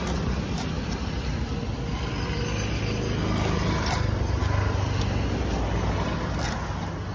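A steady low engine-like rumble, loudest about halfway through, with a few faint clicks as fish is cut on a boti blade.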